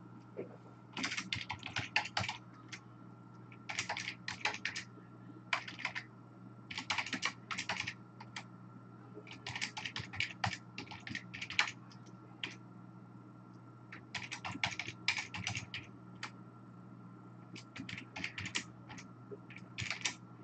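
Computer keyboard typing in short runs of rapid keystrokes, with pauses between the runs.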